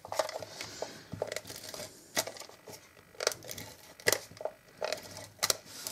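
Hands handling card stock and paper-crafting tools: soft crinkling with scattered sharp clicks and taps, about half a dozen.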